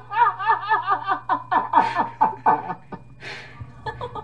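A man laughing in a fast run of high giggles that slow and drop in pitch, ending in a breathy exhale a little over three seconds in.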